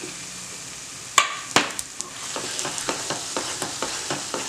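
Masala sizzling in a non-stick pan as fried potato cubes are tipped in, with two sharp knocks a little over a second in. A wooden spatula then stirs the potatoes through the masala, scraping and tapping the pan about three times a second.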